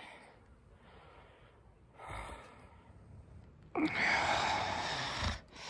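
A man breathing as he dozes off: a short breath about two seconds in, then a longer, louder sigh from about four seconds in whose pitch falls at its start.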